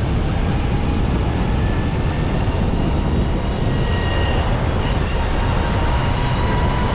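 Off-road vehicle driving on a rough road after the asphalt has run out: a steady rumble of tyres and engine, with a faint whine rising slightly in pitch.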